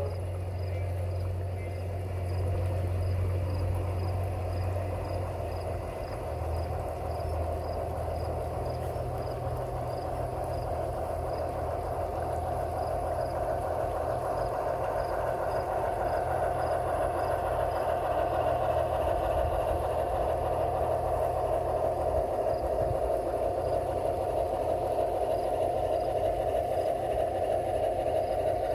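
Large-scale garden model train with a geared locomotive running on outdoor track: a steady rolling rumble of wheels on rail and motor hum. A faint regular ticking sounds along with it.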